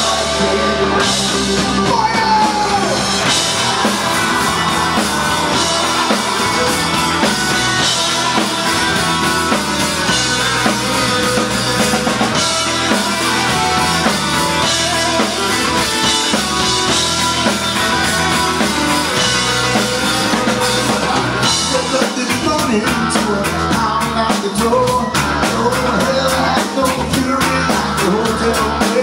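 Punk rock band playing live and loud: drums, electric guitars and bass guitar, with a man singing into the microphone.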